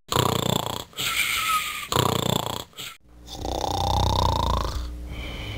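Snoring: three snores in the first three seconds, then a longer one with a rising whistle-like note.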